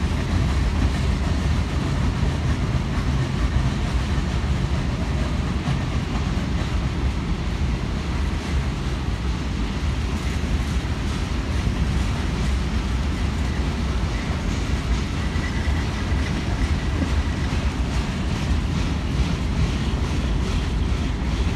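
Freight cars of a manifest train rolling past, boxcars then covered hoppers, their steel wheels on the rails making a steady rolling noise.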